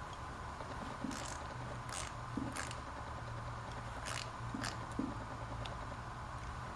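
Hand tools and metal parts being handled while an air cleaner is bolted onto a motorcycle: about half a dozen short, irregular clicks and scrapes over a steady low hum.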